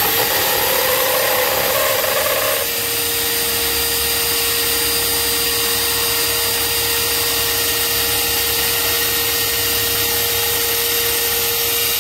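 Milwaukee M18 Fuel cordless hammer drill, set to drill mode, driving a 2 3/8-inch hole saw through a thick wood block: a loud, steady run under load that starts and stops abruptly, its tone changing about two and a half seconds in.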